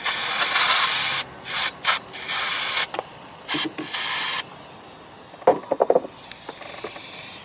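Pressurized spray hissing into a Johnson 25 hp outboard's carburetor passages to clear a clogged slow-speed circuit: one long blast, then several short ones. A few quick clicks or rattles follow at around five and a half seconds.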